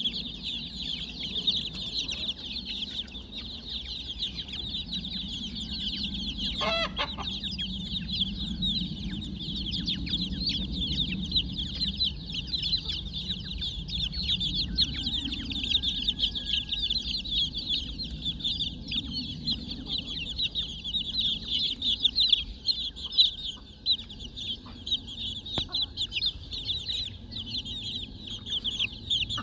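A crowd of chicks peeping nonstop, many high cheeps overlapping, with one brief lower call about seven seconds in.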